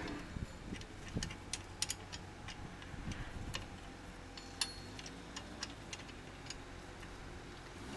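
Sharp metallic clicks and ticks, irregularly spaced and mostly in the first six seconds, from a socket and extension being worked on the rear drum brake hardware, over a faint steady low hum.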